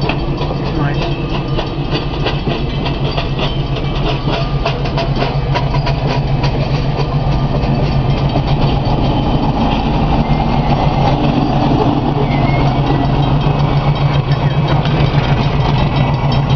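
Passenger train cars rolling past at a level crossing, their wheels clicking and clacking over the rail joints, mostly in the first half. Under it a steady low diesel engine drone grows louder toward the end as the locomotive comes level.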